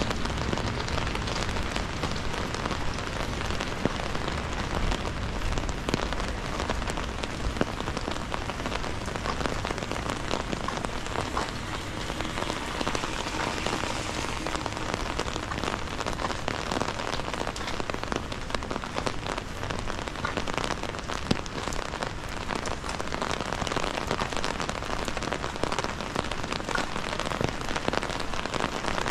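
Steady rain falling, a dense even patter of many individual raindrops hitting surfaces.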